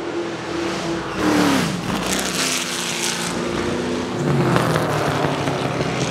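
Lola T70 Mk3 coupé's Chevrolet V8 racing engine. Its note falls sharply about a second in as the revs drop, then climbs again from about four seconds in as it accelerates.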